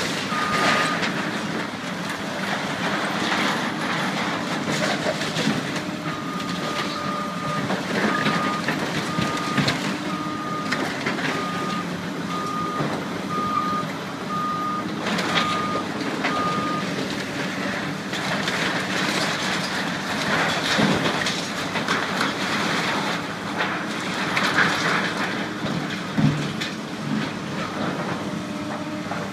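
Heavy demolition machinery running, with a steady engine hum and irregular clattering and scraping of debris. Its backup alarm beeps about once a second for roughly ten seconds in the first half.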